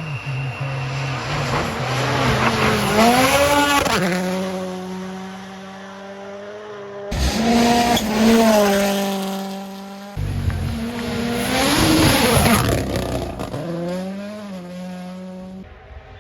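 Rally1 rally cars passing at speed one after another, their turbocharged four-cylinder engines revving high and swinging in pitch as each goes by. The sound changes abruptly between passes.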